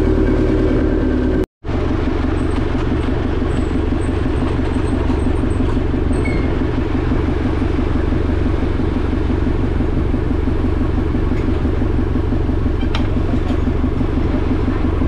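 A motor vehicle engine running steadily close by, with a fine regular pulse in its low note. The sound drops out to silence briefly about one and a half seconds in, then continues unchanged.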